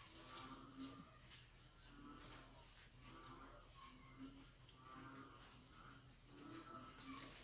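Faint, steady chirring of crickets, with faint short pitched sounds recurring about once a second underneath.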